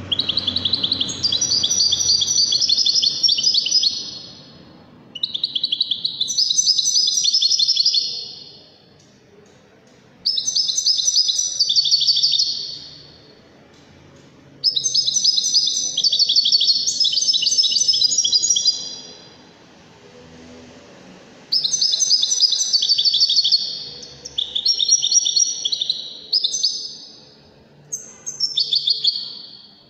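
Caged European goldfinch of the Moroccan 'Widani' type singing: about seven phrases of rapid, high twittering and trilling, each a few seconds long, with short pauses between them.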